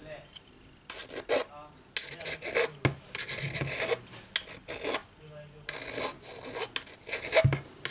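A flat tool rubbed and scraped against the bent corner of an iPad's metal housing in a series of rasping strokes, working the corner back into shape.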